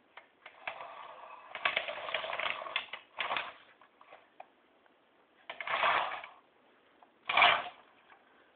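Yellow plastic carriage moving along a metal rail, rattling and scraping in one longer run and then three shorter bursts, the last the loudest.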